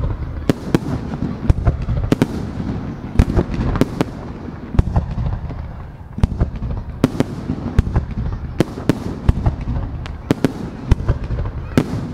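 Fireworks display: aerial shells launching and bursting in quick, irregular succession, a string of sharp bangs, often several a second, over a continuous low rumble of echoing reports.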